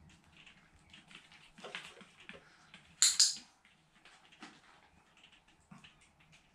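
Faint rustling and light ticking of a paper tissue being handled, with a louder, sharp double crackle about three seconds in.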